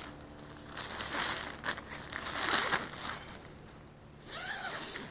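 Crinkly rustling of camping gear, such as a sleeping bag or bivy sack being handled, in three short bursts.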